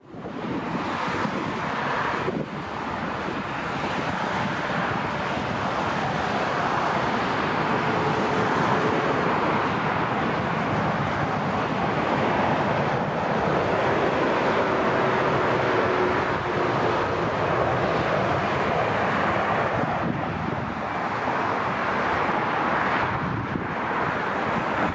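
Jet airliner engines as a plane passes: a steady rushing noise that builds over the first few seconds and stays strong through the middle, with wind buffeting the microphone.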